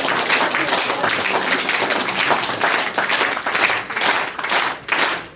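Audience applauding: dense clapping that, over the last second or so, thins into separate claps at about three a second.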